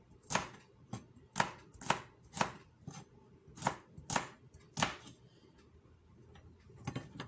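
Chef's knife chopping garlic cloves on a plastic cutting board: sharp strikes of the blade on the board about two a second, with a short pause about three seconds in. The chopping stops about five seconds in, followed by a few light taps near the end.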